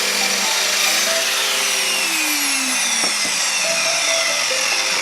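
Power mitre saw running and cutting softwood lengths to size: a loud, steady saw noise with a faint falling whine, cutting off suddenly at the very end.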